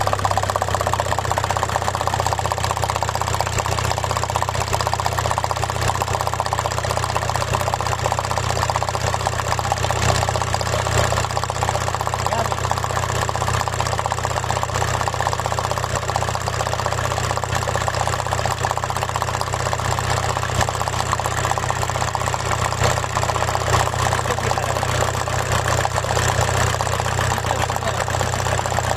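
Car engine idling steadily just after being started.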